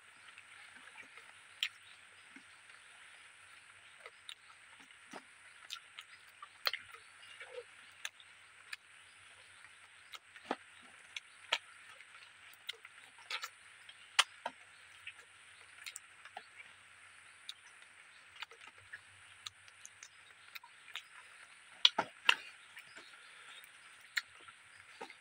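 Close-up mouth sounds of a person eating rice and fish curry by hand: irregular wet chewing clicks and lip smacks, a few sharper ones about 22 seconds in, over a steady high hiss.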